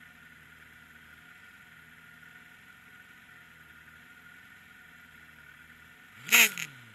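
A racing motorcycle passes close at speed about six seconds in, loud and brief, its engine note dropping sharply in pitch as it goes by. Before that there is only a faint steady hum.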